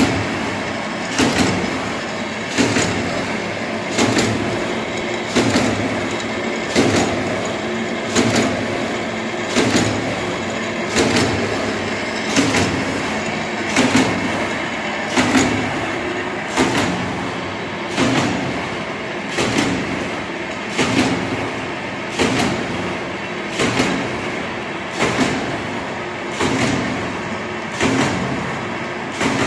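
Shine Straw paper straw making machine running: a steady mechanical whir with a sharp clack repeating evenly about every second and a half as it cycles.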